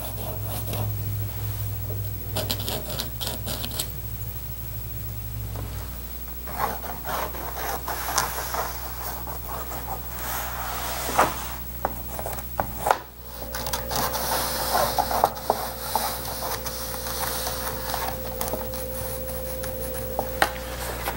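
Pencil scratching and rubbing along paper as the outline of a metal seat frame is traced onto a template, with a few sharp light knocks in between.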